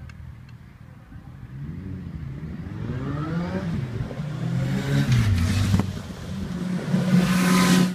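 Cars accelerating on the adjacent street, their engine pitch rising and falling as they pass and change gear, growing louder toward the end and cutting off suddenly.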